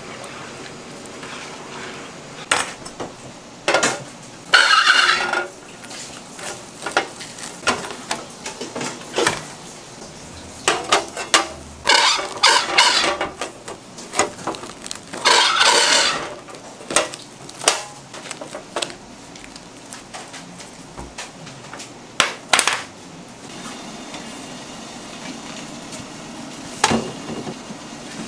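Metal kitchenware being handled: a stainless cake ring and a steamer pot knocking and clattering, with three longer scraping sounds along the way.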